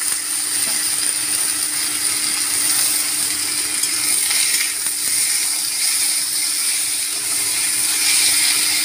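Fry-cut potato sticks and sliced onions sizzling in hot oil in an iron wok while being stirred, a steady hiss throughout. A steady low hum runs underneath.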